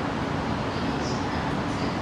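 Train running through the station, a steady low rumble with no separate clanks or squeals.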